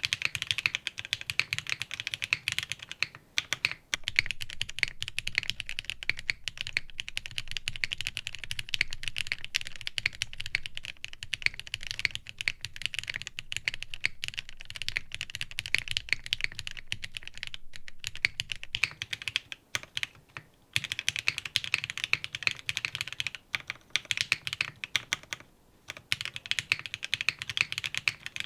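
Continuous fast typing on a Matrix IM+ Meta custom mechanical keyboard with lubed and filmed Gateron CJ linear switches, a carbon fiber plate, a direct top mount and no foam, giving rapid bright clacks. The typing stops briefly a couple of times.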